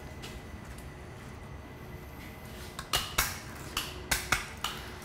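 Wire cutters snipping galvanized hexagonal chicken wire: a quick run of about six sharp metallic clicks starting about three seconds in.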